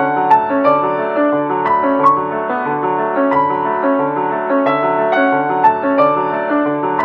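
Background music: a keyboard tune over a bass line with a steady beat.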